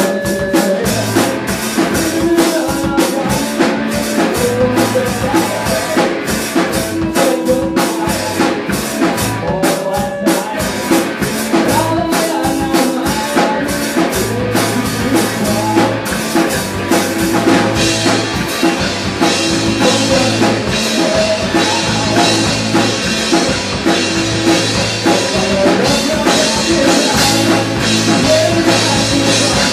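Rock band playing live: drum kit, electric guitars and a sung lead vocal. About halfway through, the playing gets brighter and fuller.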